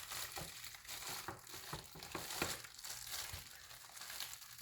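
Light rustling with scattered small clicks and ticks, from handling garage door opener drive belts.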